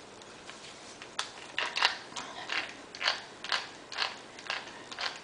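Chuck key turning the scroll of a 4-inch three-jaw scroll chuck, running the three jaws in: a run of short clicks and scrapes, about two a second, starting about a second in. The scroll runs a little rough, which the owner puts down to internal edges that are not machined perfectly.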